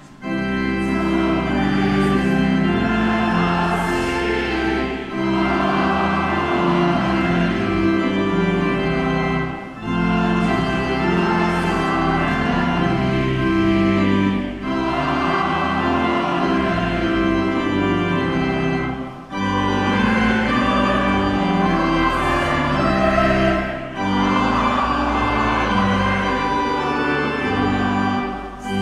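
Church organ playing a slow, hymn-like piece in phrases of about five seconds, each ending in a brief break before the next.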